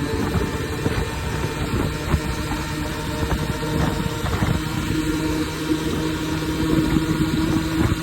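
Beta RR 50 enduro motorcycle's 50cc two-stroke single-cylinder engine running steadily at low revs, near idle.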